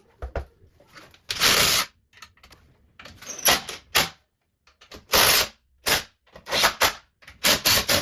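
An irregular series of loud knocks and bangs, about eight in all, each short and sharp with quiet gaps between, from fitting work on a sink unit.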